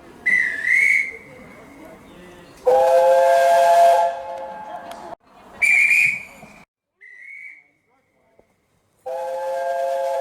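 A high, warbling hand whistle blows, and a narrow-gauge steam locomotive's whistle answers with a long chord of several pitches; the exchange repeats, the usual guard's right-away signal and the engine's reply before a train departs.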